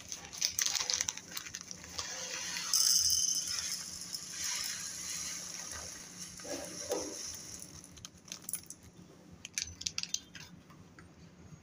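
Dry tapioca pearls (sabudana) rattling and pouring as a small cup is filled from a plastic packet, with the packet rustling. The loudest part is a dense hiss about three seconds in that fades over the next few seconds; scattered clicks of pearls come before and after.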